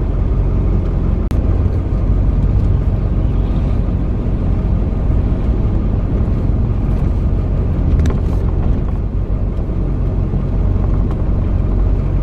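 Steady low rumble of road and engine noise inside a moving car's cabin, with a couple of faint clicks, about a second in and again about eight seconds in.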